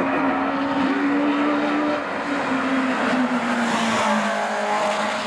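Rally car engine running at high revs as the car comes up and passes close by. Its note is steady, then drops in pitch about four seconds in as it goes past.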